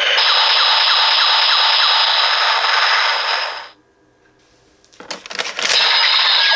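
Bandai DX Hiden Zero-One Driver toy transformation belt playing its electronic sound effects. A loud hissing, buzzing effect with steady high tones cuts off suddenly a little over halfway through. After a short quiet gap come a few sharp clicks, and the effect starts again near the end.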